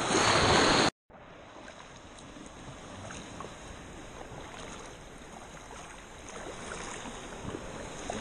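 A loud rush of noise for about a second that cuts off suddenly. Then faint water sounds from a kayak being paddled on calm sea: steady lapping and dripping with scattered small ticks.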